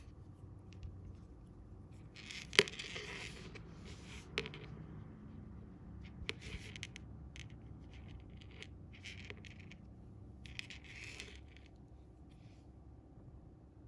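Hands handling monofilament fishing line and small tackle: scratchy rubbing and scraping in short spells, with a sharp click about two and a half seconds in and a smaller click a couple of seconds later.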